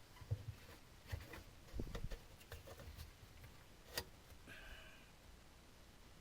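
Faint scattered clicks and light knocks, with one sharper click about four seconds in and a brief faint tone just after it.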